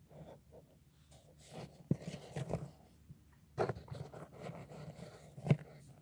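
Dry white clay chunks crunching and scraping, with a few sharp cracks; the sharpest comes about two seconds in, again past the halfway point, and the loudest near the end.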